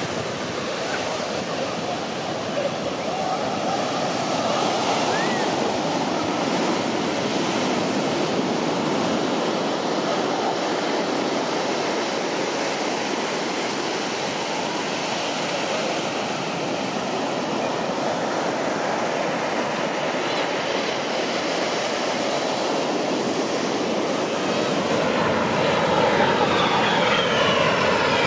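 Steady rushing noise of beach surf. Near the end an aircraft comes through and grows louder, its engine pitch falling as it passes.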